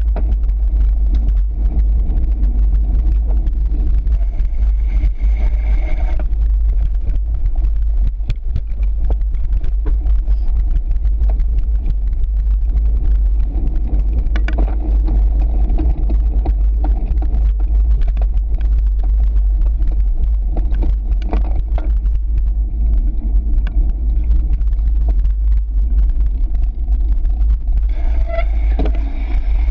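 Riding noise from a handlebar-mounted action camera on a cyclocross bike: a continuous low wind rumble on the microphone with the tyres rolling over gravel and dirt and the bike rattling. A brief higher-pitched whine comes in twice, about four seconds in and near the end.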